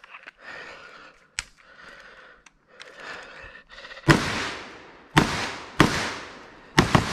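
Faint rustling and handling noise, then about four seconds in a Palmetto State Armory KS47 rifle (AK-pattern, 7.62×39) fires five shots at an uneven pace, the last two close together, each shot echoing off the woods.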